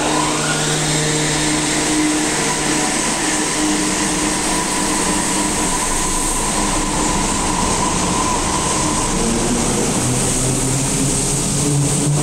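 Kobe Municipal Subway 5000-series linear-motor train pulling away from the platform: a rising electric motor whine as it starts, then a steady tone and rail rumble as the cars run past. The whine dies away about nine seconds in.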